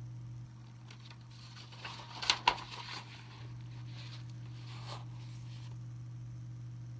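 A picture-book page being turned: a short paper rustle about two seconds in with two sharp flicks, and a faint second rustle about five seconds in. A steady low hum lies underneath.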